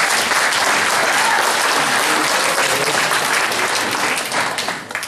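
Theatre audience applauding, a dense, steady clapping that fades away near the end.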